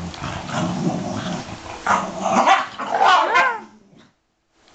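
Two dogs, a Puggle and a Dachshund/German shepherd mix, play-growling at each other as they wrestle, breaking into a quick run of short high yips about three seconds in.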